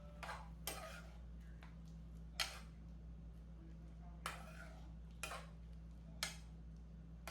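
Kitchenware clinking faintly: six sharp, irregular clicks and taps, the loudest about two and a half seconds in, over a steady low hum.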